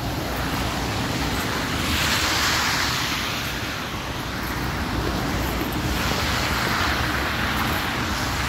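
Cars passing on a slushy, snow-covered road, their tyres hissing through the wet slush: one swell about two seconds in and a longer one from about six seconds in.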